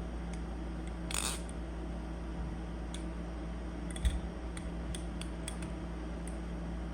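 Tsunami balisong (butterfly knife) being flipped by hand: scattered light metallic clicks of the handles and blade, with a short rattle about a second in and a sharper clack about four seconds in, over a steady low hum.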